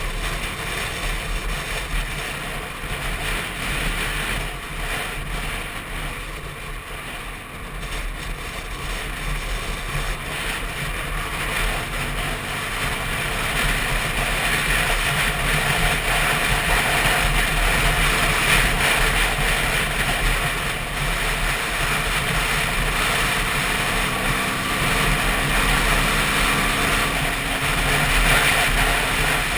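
Yamaha WR125's single-cylinder four-stroke engine running at road speed, mixed with wind and road noise on the camera. The sound grows louder about a third of the way in and stays loud.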